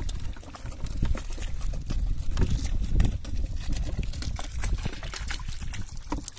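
Wet handling sounds of fish being picked from a cast net in shallow water and mud: irregular small splashes, drips and clicks, with a steady low rumble underneath.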